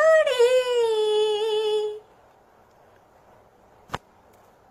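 A woman's unaccompanied singing voice holding the last note of a song, its vibrato settling into a steady tone that stops about two seconds in. A single click follows near the end.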